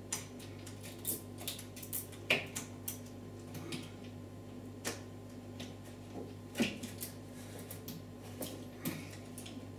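Saw chain and guide bar of a cordless chainsaw handled while the chain is fitted onto the bar and sprocket: irregular light metallic clicks and clacks of chain links and bar, the loudest about two seconds in and again near the seven-second mark.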